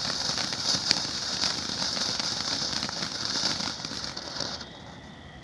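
Sparkling firework burning with a steady crackling hiss peppered with small pops, cutting off suddenly near the end as it burns out.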